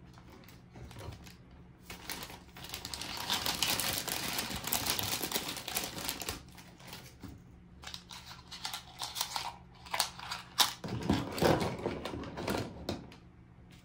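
Hands unboxing miniature toy kitchen pieces: packaging crinkling and rustling for a few seconds, then small plastic pieces clicking and tapping as they are handled.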